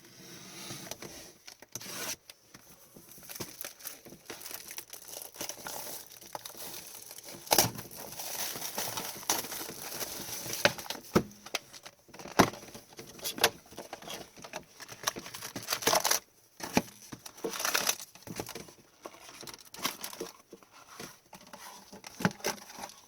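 Foil wrappers of 2020-21 Upper Deck Series 1 hockey card packs being torn open and crinkled by hand, an irregular crackle with scattered sharp clicks.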